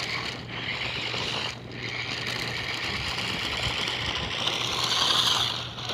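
Radio-controlled car driving on an icy, slick surface: its small motor whines over a steady hiss of the tyres, the whine swelling a little near the end.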